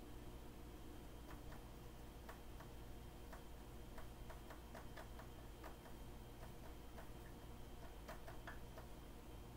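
Whiteboard marker writing on a whiteboard: faint, irregular clicks and taps as letters and dots are written, over a low steady room hum.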